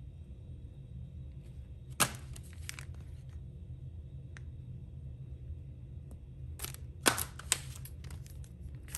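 Plastic blister packaging of embossing folders being handled: sharp crackles and clicks about two seconds in and again in a short cluster near the end, as the packages are swapped and set down on the table, over a steady low hum.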